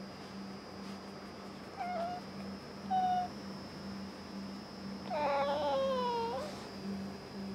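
Domestic cat vocalizing in its sleep: two short calls about two and three seconds in, then a longer meow-like call about five seconds in that falls in pitch.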